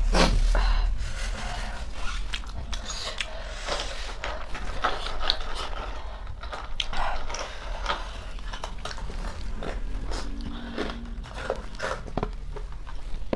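Close-miked chewing of spicy instant noodles, with irregular small mouth clicks and crunches over a steady low hum.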